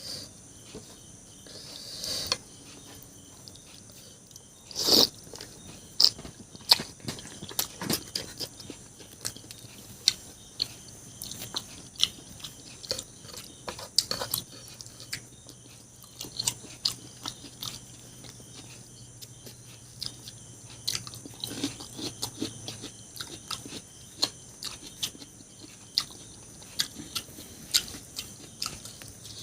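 A person chewing and biting food close to the microphone, with many irregular sharp clicks.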